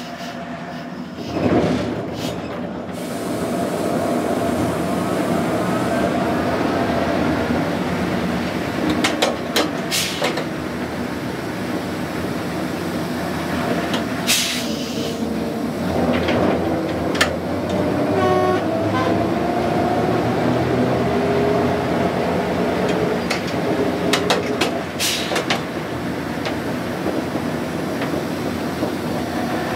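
British Rail Class 05 diesel shunter running in motion, heard from inside its cab: a steady engine note that rises and falls in pitch around the middle, with a few sharp clunks.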